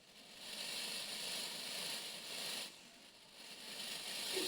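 Peacock rattling its raised tail feathers during its display: two stretches of dry, hissing rustle, a longer one and then a shorter one about a second later.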